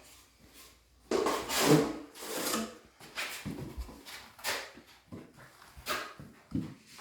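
Drywall knife scraping and spreading joint compound: a series of rasping strokes, the longest and loudest about a second in, then shorter strokes.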